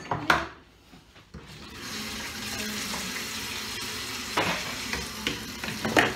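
Kitchen tap turned on about one and a half seconds in, water running steadily into the sink, with a few short knocks of dishes.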